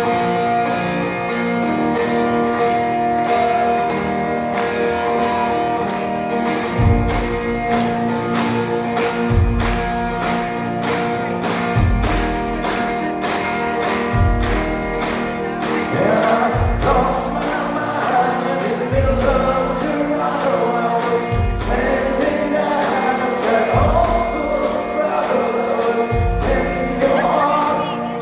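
Live band playing a slow song: held chords open it, deep bass notes come in about seven seconds in on a slow, even beat, and a male lead voice starts singing about halfway through.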